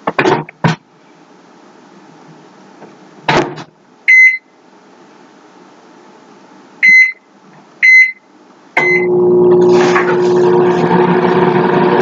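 Microwave oven being set going: a few clicks and a clunk, four short keypad beeps as the time is entered, then the oven starts up about nine seconds in with a loud, steady hum.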